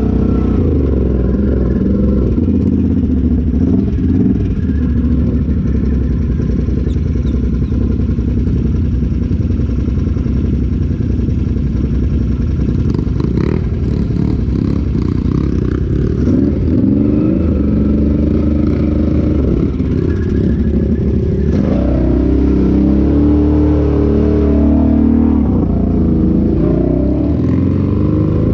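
Can-Am off-road vehicle's engine running as it is driven through mud, revving up and down repeatedly, with some clatter from the machine.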